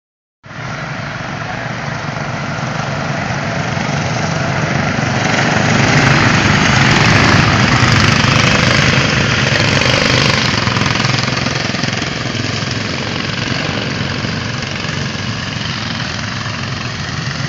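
Engines of several small race cars running at speed on a dirt oval. The sound swells as the pack comes past, loudest around seven to ten seconds in, then eases as they move away.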